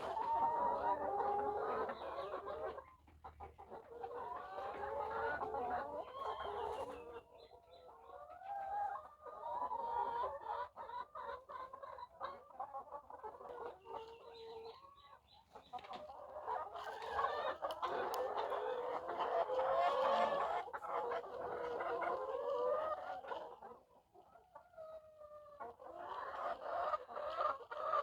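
A flock of layer hens clucking and calling together, many birds overlapping, with a rooster crowing among them now and then.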